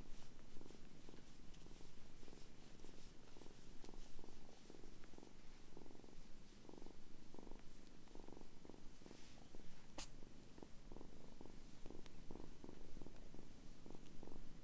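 Kitten purring steadily in a close, even rhythm while being stroked. A single sharp click stands out about ten seconds in.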